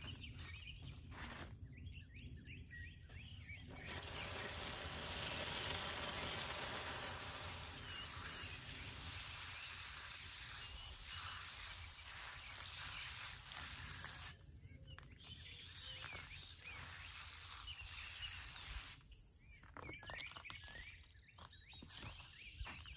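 Garden hose watering wand spraying water onto the soil of a potted plant: a steady hiss that starts a few seconds in and eases off after about ten seconds. Birds chirp now and then.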